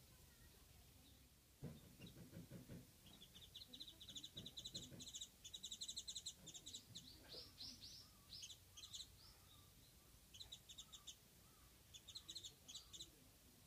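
Japanese white-eye calling: faint, rapid trills of short high notes in several bursts, starting about three seconds in.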